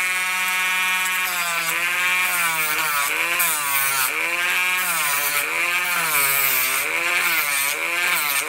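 Dremel rotary tool running at high speed. Its pitch sags and picks up again about once a second as it is pressed into the work.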